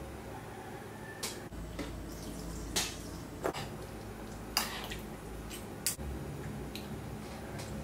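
Kitchen work sounds: about five separate taps and clinks of utensils and dishes, spread a second or so apart, over a low steady hum.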